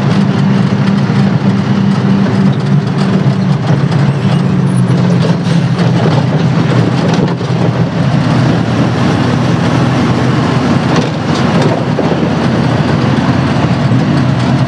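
Truck engine running at a steady low hum with road noise, heard from inside the cab while driving.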